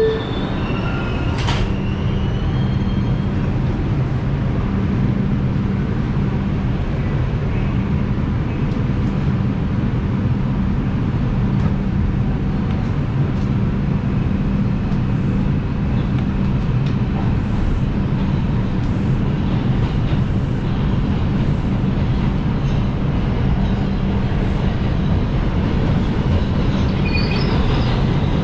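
New York City subway train running through a tunnel, heard from inside the car: a steady low rumble and motor hum, with faint rail-joint clicks and a brief high wheel squeal near the end.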